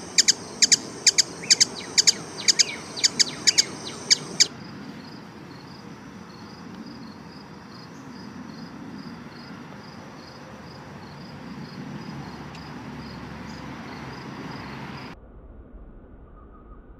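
Hummingbird chip calls: a quick series of sharp, high chirps, about three a second, that stops about four seconds in. After that, a steady outdoor hiss with a faint, even chirping about twice a second.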